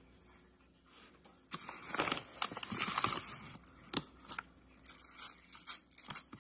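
A plastic bag of sugar crinkling and rustling as a small plastic measuring spoon digs in to scoop sugar. It starts about a second and a half in, and is followed by a few light clicks and scrapes of the spoon.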